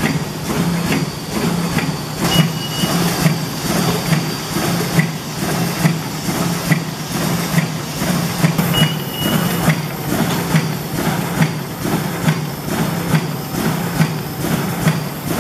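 Shopping bag making machine running: a steady motor hum with a regular knock about every three-quarters of a second from its working stroke. A short high beep sounds twice.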